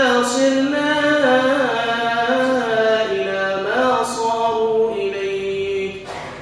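A man's voice chanting a dua (Islamic supplication) in a drawn-out melody, with long held notes that slide between pitches; the voice trails off near the end.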